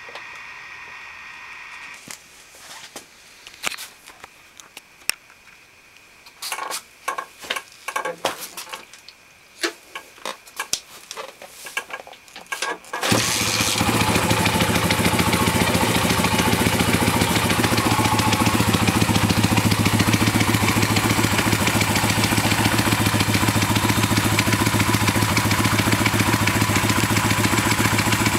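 PitsterPro X2 pit bike's single-cylinder four-stroke engine: irregular clicks and clunks for several seconds, then the engine catches about thirteen seconds in and runs steadily and loudly. The owner says the bike makes a weird noise of unknown cause.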